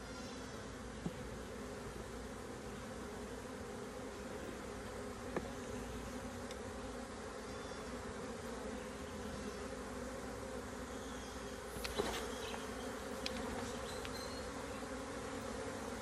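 A mass of honeybees buzzing steadily around their comb as it is handled and moved into a hive box: a disturbed colony. A few sharp knocks come through, about a second in, at about five seconds and around twelve seconds.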